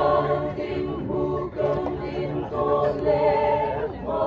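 A choir singing unaccompanied, in held chords phrase by phrase, with brief breaks between the phrases.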